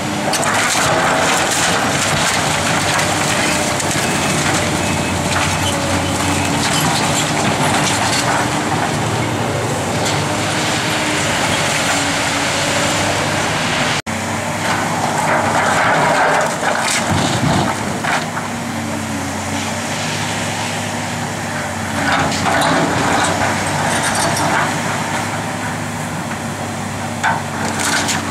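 Link-Belt 210 excavator's diesel engine running steadily under hydraulic load while its bucket crushes and breaks concrete and wood rubble, with continual crunching and cracking. The crunching is heaviest at the start and again a little past halfway.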